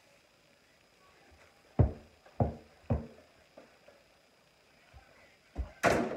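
A basketball bouncing three times, about half a second apart, then near the end a louder, sharper clatter as the ball strikes a plastic toy hoop's backboard and rim.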